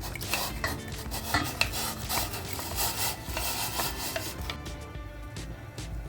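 A spoon scraping and clinking against a cooking pot in irregular strokes as food is stirred, with light background music underneath.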